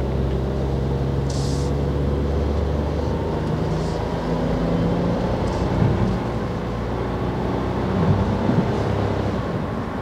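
Cabin sound of a Hyundai Casper's naturally aspirated 1.0-litre three-cylinder engine pulling the car up through city speeds. It is a steady low engine hum over tyre and road noise, with the engine tones shifting slightly in pitch.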